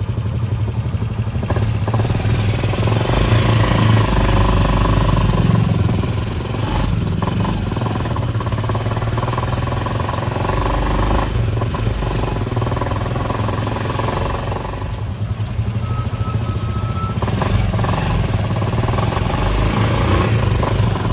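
Motorcycle engine of a Philippine tricycle (motorcycle with sidecar) running steadily under way, with wind and road noise, heard from aboard. It gets louder for a few seconds about three to six seconds in.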